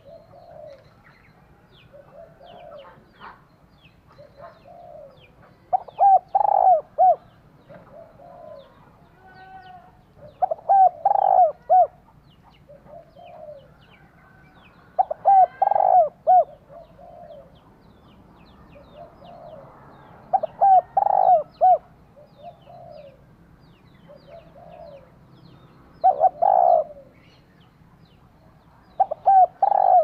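Female spotted dove cooing: a phrase of three or four coos about every five seconds, six times, with softer coos between the phrases.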